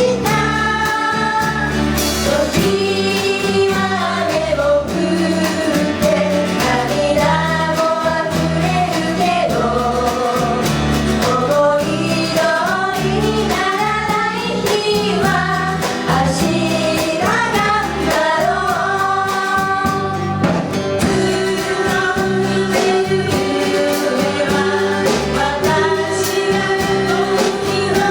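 Live band playing a pop song with sung vocals over a steady beat.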